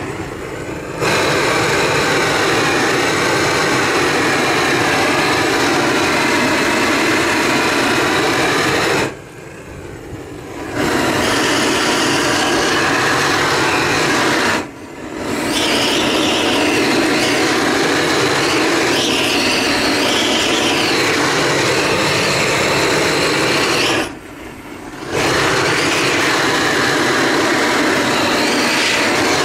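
Propane roofing torch blowing a loud, steady flame against a wooden post to char it. The flame is cut back three times, about 9, 15 and 24 seconds in, for a second or so each time, and then opened up again.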